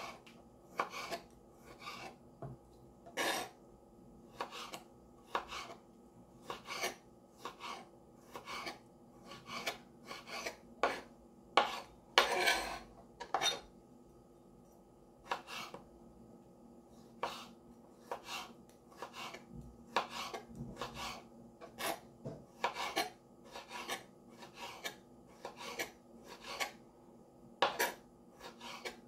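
Kitchen knife slicing ripe jackfruit on a plastic cutting board: short, irregular knocks and scrapes of the blade through the fruit and onto the board, about one to two a second, with one longer scrape a little before halfway.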